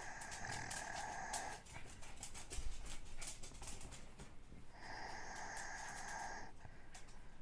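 A sleeping person snoring with a whistling wheeze: two long, steady whistled breaths about four seconds apart, with faint clicks between them.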